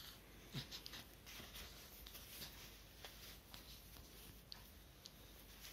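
Near silence with faint, scattered rustles and light ticks of a cloth baby swaddle being handled and folded around an infant's legs.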